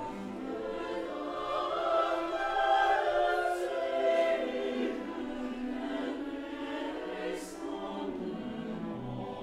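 Mixed choir singing a slow passage in Dutch with orchestral accompaniment, swelling louder about two seconds in and easing back after four.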